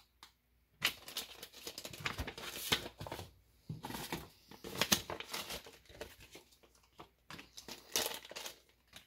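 Small clear plastic bag crinkling and rustling in hand, in three or four bursts separated by short pauses.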